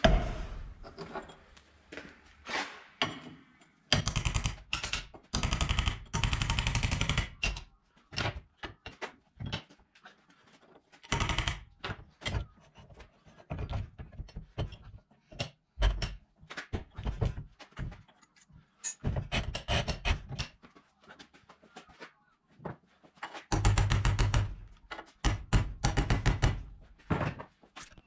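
Hammer blows on a punch against a seized slide pin and its end cap on a cast-iron brake caliper held in a bench vise. The blows come in several runs of quick strikes with single knocks between them.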